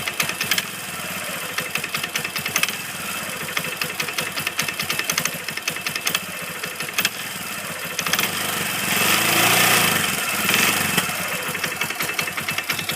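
Kawasaki ATV engine running with a rapid knocking rattle, getting louder for a couple of seconds about nine seconds in. The owner is sure the noise is the clutch: either a worn washer letting the clutch slide on the crankshaft or a bad clutch bearing.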